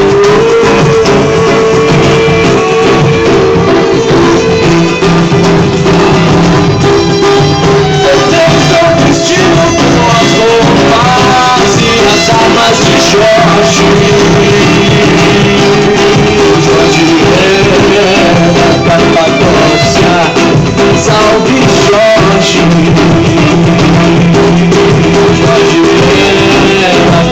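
Live street busking music, loud and continuous, led by guitar.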